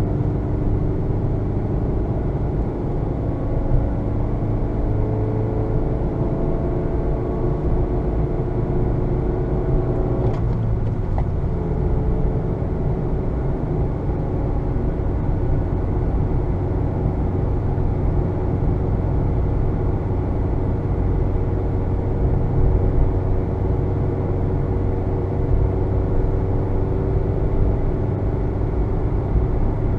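A 2020 Honda Fit's 1.5-litre four-cylinder engine pulls steadily under road noise while driving. Its note climbs slowly, then drops suddenly about ten seconds in with a gear change on the six-speed manual, and holds fairly steady after that.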